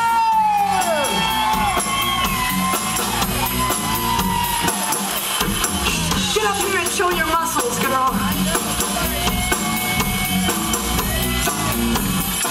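Live rock band playing: a steady drum-kit beat with electric guitars and bass, and a woman's sung vocal line. A long held note bends down and ends about a second in.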